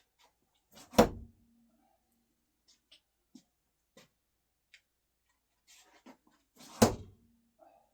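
Two flathead screwdrivers thrown no-spin hitting a wooden target about six seconds apart, each a sharp thud followed by a brief ringing tone, with faint clicks and shuffles between the throws.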